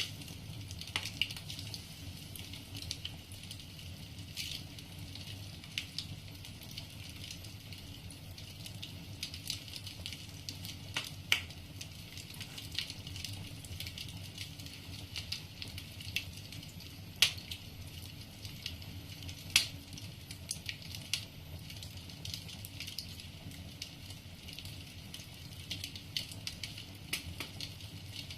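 Wood fire crackling in a fireplace: irregular sharp pops and snaps of burning logs over a steady low background, with two louder pops a little past the middle.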